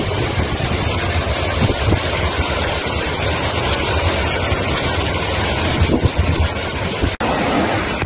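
Loud, steady rush of a waterfall in flood, its muddy water and spray pouring through the forest, with wind buffeting the microphone. The sound drops out for an instant about seven seconds in, then the same rush carries on.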